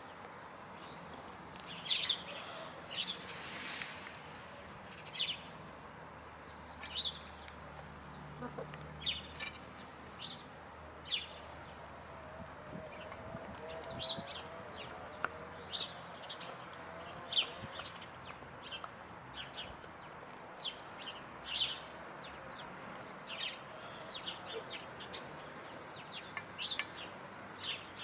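Hens feeding, with frequent short, high chirp-like sounds at irregular intervals and a soft, low, wavering hen call in the middle.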